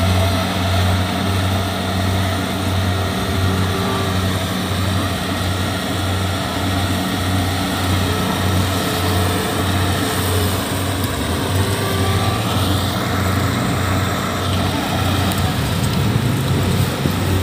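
Kubota DC-70 combine harvester's diesel engine running steadily under load, a low hum with a regular throb, as the machine crawls and cuts through soft, sticky paddy mud.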